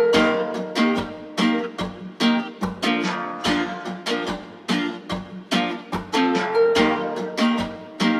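Background music: a strummed acoustic guitar playing a steady, bouncy rhythm, about two strums a second.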